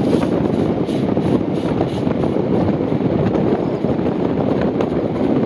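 Steady loud rush of two steam-hauled trains running side by side at speed: wheels on rail from the carriage and the R class steam locomotive running alongside, with wind buffeting the microphone.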